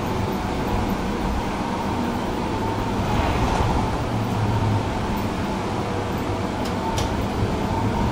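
Tram running along its rails: a steady rumble of wheels on track and running gear, with two short sharp clicks near the end.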